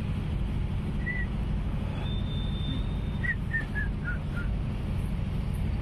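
Steady low outdoor rumble, with a thin high whistle held for about a second and a half around two seconds in, followed by a run of short chirps that step down in pitch.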